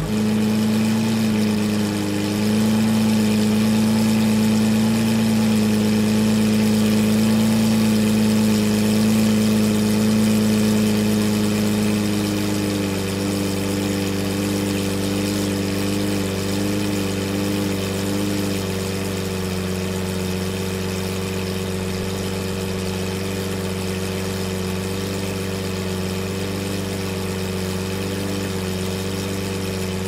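2009 Lamborghini Murciélago V12 with an upgraded aftermarket exhaust idling just after start-up. The idle runs a little higher at first, then drops to a lower, steadier note about twelve seconds in.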